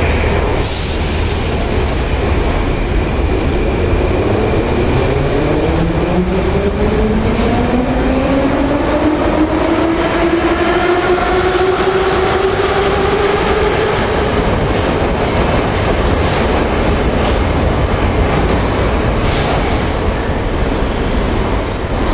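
Moscow metro 81-717.5 train pulling out of the station. Its traction motors whine, rising steadily in pitch as it accelerates, over a steady rumble of wheels, with a short hiss about a second in. The sound fades as the last car leaves near the end.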